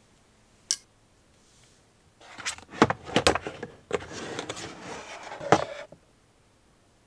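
A single sharp click, then a white plastic storage box pulled out from a shelf: several seconds of scraping and sliding with a string of knocks, ending with a last knock just before it goes quiet.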